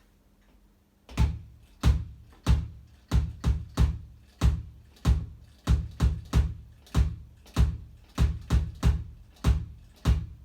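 Electronic drum kit's bass (kick) drum played with the foot pedal: about eighteen deep, low kicks starting about a second in. They fall in a steady pulse of roughly one beat every 0.6 seconds, with a few quick double and triple kicks.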